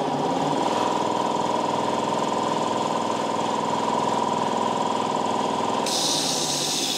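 A belt-driven 5 hp air compressor with a three-phase motor, soft-started by a variable frequency drive. It comes up to full speed smoothly, then runs with a steady, even note. About six seconds in, a high hiss joins it.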